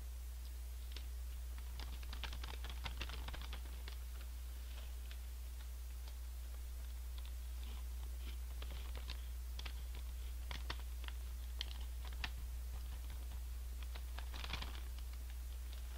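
A Honey Tongtong chip bag crinkling as it is handled and tipped up to the mouth, with scattered crunches of the chips being eaten, loudest in bursts about two to three seconds in and near the end. A steady low hum runs underneath.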